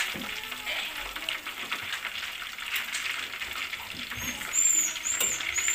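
Hot oil sizzling and crackling as breaded chicken pieces deep-fry in a pot, with a few short high-pitched chirps about four to five seconds in.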